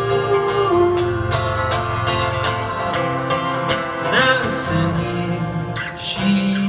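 Steel-string acoustic guitar strummed in a steady rhythm, played live and solo.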